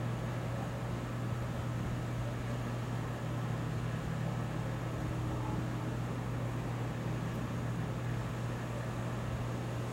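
A steady low mechanical hum over a faint hiss, holding level throughout with no thunder clap or other sudden sound.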